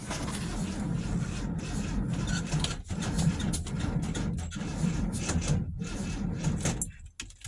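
1970 Volkswagen Beetle's air-cooled flat-four being cranked by the starter for about seven seconds without catching, then cut off: the hot-start failure the car suffers.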